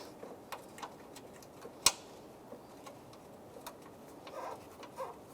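Scattered light clicks and taps of hand work on the hood latch's mounting bolts and tools, with one sharp click about two seconds in.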